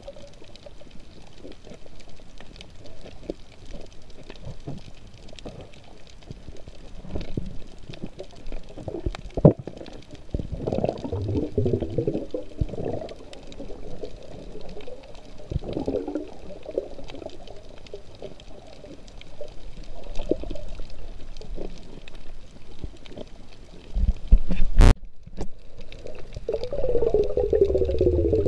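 Muffled underwater sound heard through a waterproof camera housing: bursts of bubbling and gurgling every four or five seconds over a low rumble, with a sharp click about a third of the way in and another near the end.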